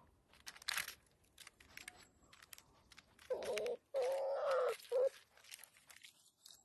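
Black bear cub's claws scratching and clicking on tree bark as it climbs down the trunk, then three short calls from the cub a little after three seconds in, the middle one the longest.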